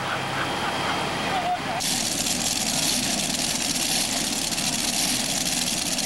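Multi-engine modified pulling tractor running steadily at low speed, a loud, dense engine noise that starts abruptly about two seconds in. Voices are heard before it.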